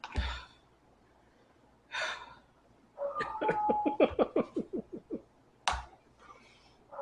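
A man breathing hard and gasping from the burn of extremely spicy noodles: two quick breaths, then a run of rapid voiced pants, about five a second, falling in pitch. A single sharp knock near the end.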